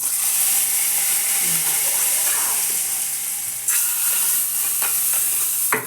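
Tempering of mustard seeds, onion and curry leaves sizzling loudly in hot oil: a steady hiss that starts suddenly, grows a little louder past halfway and stops abruptly near the end.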